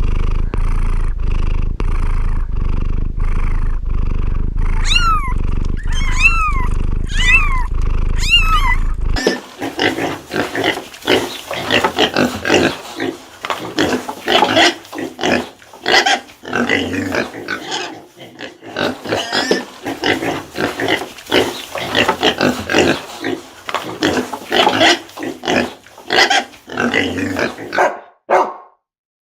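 Farm animals calling. First comes a series of four rising-and-falling calls over a low rumble. After an abrupt change about nine seconds in, a dense, busy run of short, rapid calls follows.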